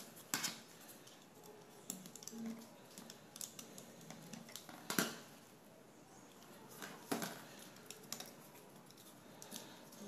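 Light clicks and knocks of a laptop's copper heatsink-and-fan assembly and small tools being handled on a tabletop, with three sharper knocks: about half a second in, about halfway through (the loudest), and about seven seconds in.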